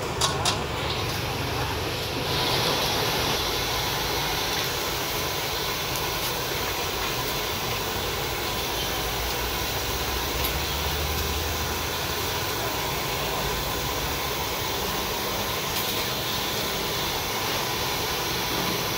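Ham chin pen dough cakes deep-frying in a wok of hot oil: a steady sizzle that gets louder about two seconds in. A few sharp clicks of wooden chopsticks against the wok at the very start.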